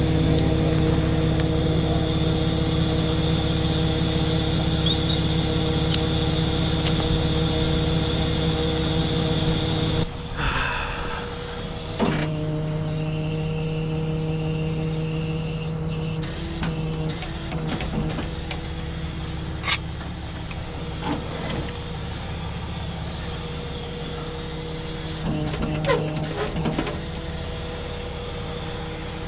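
Tow truck's engine running steadily with its hydraulic system engaged, a steady mechanical hum. It cuts off abruptly about a third of the way in and resumes a couple of seconds later, with a few sharp metallic clicks in the second half.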